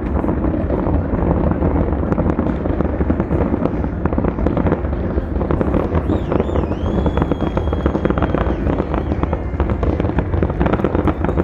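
Fireworks display going off in a dense run of crackles and bangs over a continuous low rumble. From about halfway, shrill whistles that dip and then hold steady sound over the crackling.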